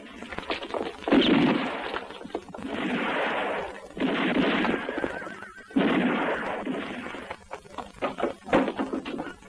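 Film gunshots, about four heavy shots a second or two apart, each with a long echoing tail, followed by a few lighter knocks near the end.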